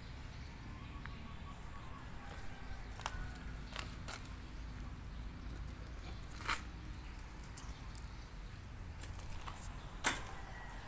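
Faint outdoor background noise with a steady low rumble and a few scattered sharp clicks, the loudest near the end.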